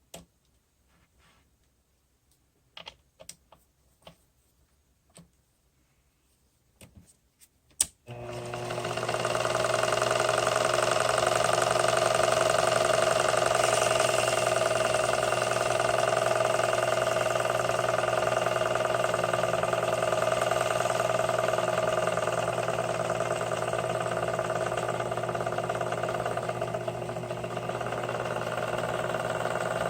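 A few light clicks and knocks from parts being handled, then about eight seconds in a small electric motor starts and runs steadily with an even whine: a Sherline mini lathe running.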